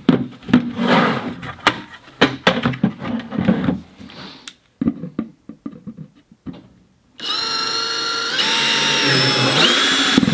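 Plastic buckets knocking and clattering as they are handled and stacked. About seven seconds in, a cordless drill starts whirring steadily, boring a 3/8-inch bit through the bottom of a plastic bucket; the whine gets louder and fuller about a second later as the bit cuts.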